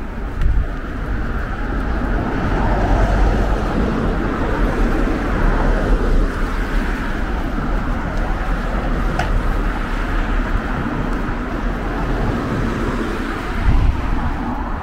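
Road traffic noise on a suburban street: a steady low rumble with a general hiss.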